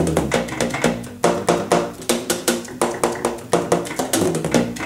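Keys of a Levante bass saxophone being worked rapidly without blowing: the pads slap shut in quick, irregular clicks, each carrying a brief low pitch from the horn that changes as different keys close.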